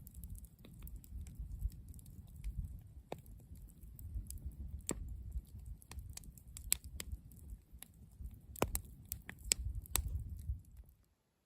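Campfire crackling: irregular sharp pops and snaps over a low rumble, cutting off abruptly near the end.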